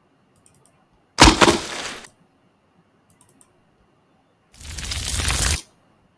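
Sound effects played back from an editing timeline. About a second in there is a sharp crack that trails off over a second: the effect laid for an egg bursting open. Near the end comes about a second of rushing noise.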